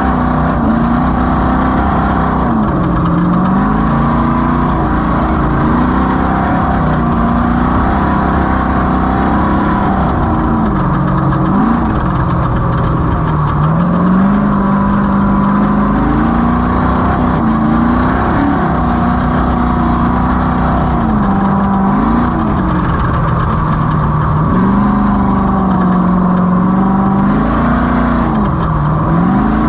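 Off-road race vehicle's engine running hard, its pitch dipping and climbing again every few seconds as the throttle comes off and back on.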